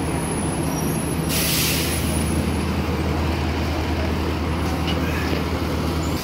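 Diesel city bus idling at the curb with a steady low engine drone. About a second in, a burst of compressed-air hiss from its air system lasts just over a second.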